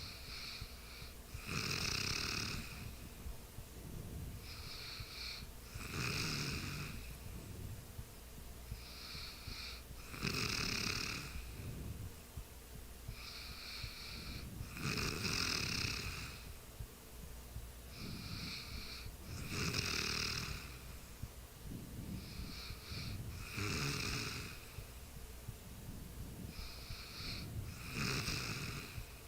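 A sleeping person snoring in a regular rhythm, about one snore every four and a half seconds. Each is a short, fainter sound followed by a longer, louder one, seven in all.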